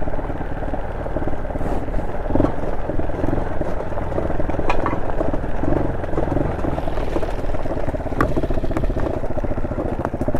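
Honda SL230's single-cylinder four-stroke engine running through an aftermarket muffler as the bike rides along at a steady pace, with a few sharp ticks about halfway and near the end.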